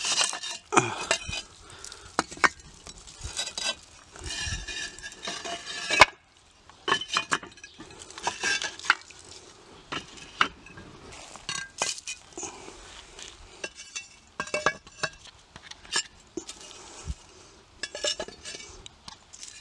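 Fired clay bricks being lifted from a stack and set down on dry ground: irregular clinks, knocks and scrapes of brick on brick, with one sharp clack about six seconds in.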